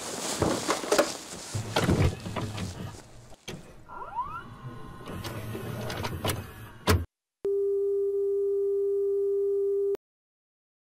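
Shuffling, footsteps and handling noises, with a short rising squeak about four seconds in and a sharp click near seven seconds. Then a steady television test-pattern tone, one pitch held for about two and a half seconds, that cuts off abruptly.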